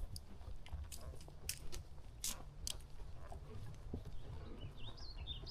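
Irregular crunching clicks from a ridden horse on a trail, over a low steady rumble, with a brief high wavering chirp near the end.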